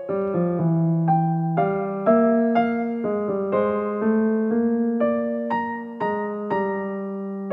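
Background music: a keyboard tune of struck, piano-like notes and chords, each fading before the next, with a new note or chord about every half second.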